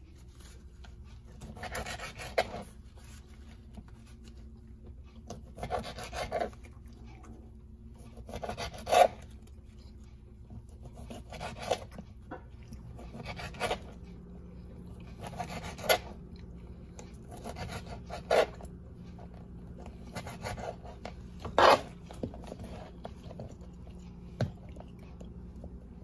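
A knife sawing through grilled chicken breast on a cutting board. There are about ten rasping cuts, one every two to three seconds, several ending in a sharp knock of the blade on the board.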